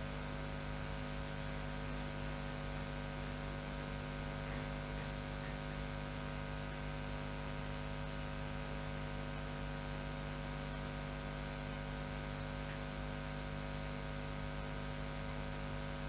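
Steady electrical mains hum: an unchanging low buzz made of many evenly spaced tones.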